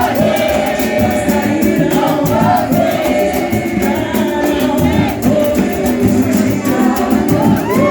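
Live samba band playing, with several voices singing together over percussion that keeps a quick, even beat.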